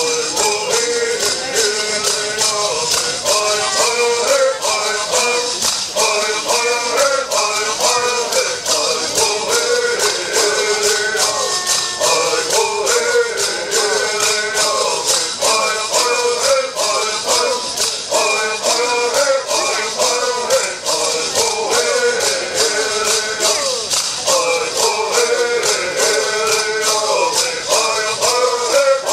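Bird song sung by a group of men in unison, who shake gourd rattles in a fast, steady beat.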